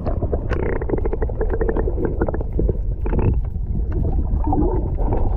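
Underwater sound of a camera dipped into the sea: a muffled low rumble of moving water, with a dense crackle of small clicks and pops.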